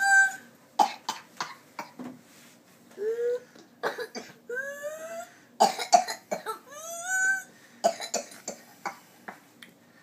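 A young girl's whooping-cough spell from pertussis: runs of short, rapid coughs, each broken off by a pitched, rising gasp for breath, several times over.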